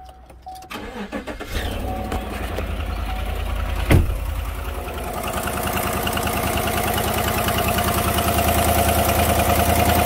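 Cold start of a Chevrolet Silverado's GM 5.3 V8: the starter cranks briefly, the engine catches and settles into idle, with a single loud thump about four seconds in. A fast, even ticking rides on the idle, which the mechanic identifies as an exhaust leak at a manifold with a broken bolt.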